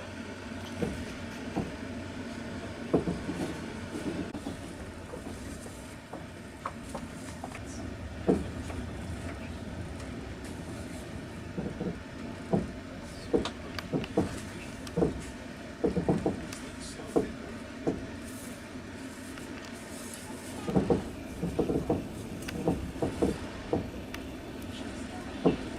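Passenger train running on the rails: a steady rumble with irregular clacks of the wheels over the rail joints, which come more often in the second half.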